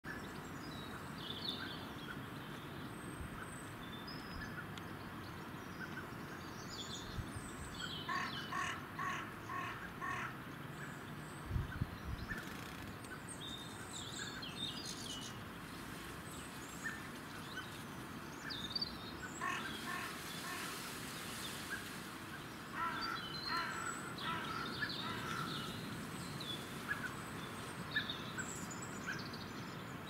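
Wild birds calling and chirping, with short scattered high notes and bouts of quick repeated harsher calls about eight seconds in and again past twenty seconds. A single dull low thump near the middle.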